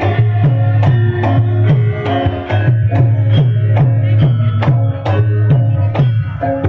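Javanese gamelan music accompanying a topeng mask dance: struck bronze metallophones ringing over deep drum strokes that fall about twice a second in a steady rhythm.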